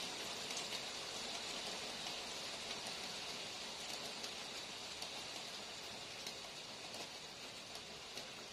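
Steady rain falling, an even hiss with scattered sharp ticks of single drops landing.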